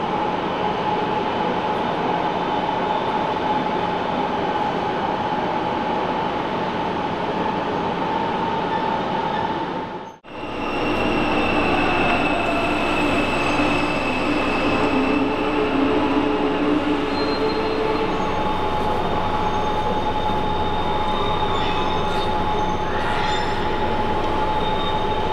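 Steady hum and whine of a DB class 147 electric locomotive and its double-deck train standing at an underground platform, with several steady tones over a noisy rumble. The sound cuts out briefly about ten seconds in, then carries on the same way.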